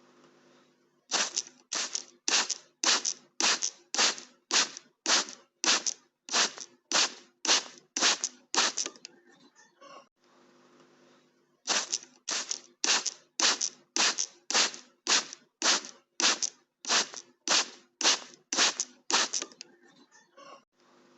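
Water spray bottle squirted again and again in quick, even pumps, about two squirts a second. One long run of squirts stops for about two seconds, then a second run follows.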